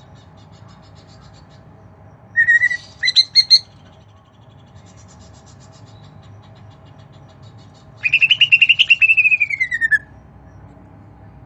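A pet bird calling: a few short, sharp chirps about two seconds in, then a run of rapid notes lasting about two seconds near the end that slides down in pitch as it finishes.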